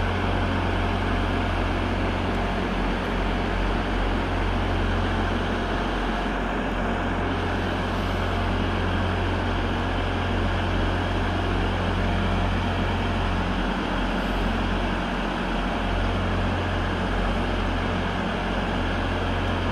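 TransPennine Express Class 802 bi-mode train moving slowly over pointwork: a steady low drone under a constant rumble.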